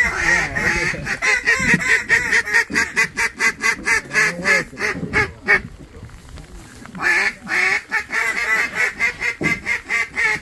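Waterfowl calling rapidly, a dense run of quacks and honks several a second, with a break of about a second and a half past the middle.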